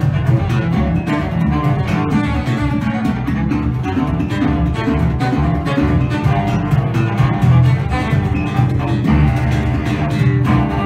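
Live duo of cello and electric guitar playing continuously, the bowed cello carrying the low part.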